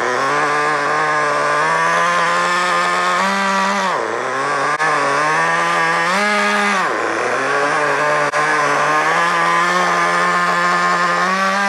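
Traxxas Nitro Slash's TRX 3.3 nitro engine running at high revs during its first-tank break-in. The pitch drops briefly and picks back up twice, at about four and seven seconds in.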